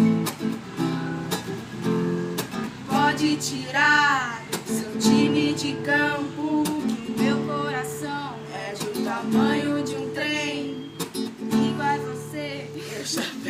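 Acoustic guitar strummed in changing chords, with a voice singing a melody over it.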